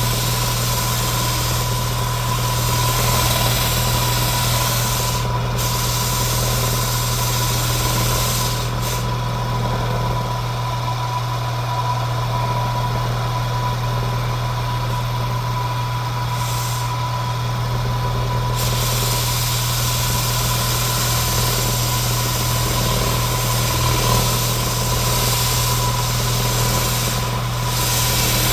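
Power tool running steadily with a low hum, a high steady tone and a broad hiss, in use on a sanding job; the hiss eases for several seconds in the middle.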